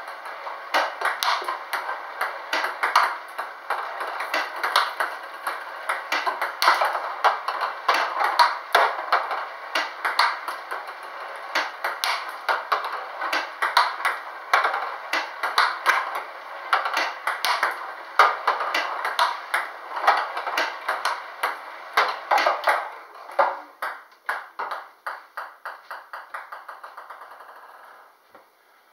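Table tennis practice against a ball robot: a fast run of sharp clicks as the celluloid-type ball is fed, bounces on the table and is struck by a penhold paddle, several times a second. Near the end the hitting stops and a ball bounces to rest, its bounces coming ever faster and fainter.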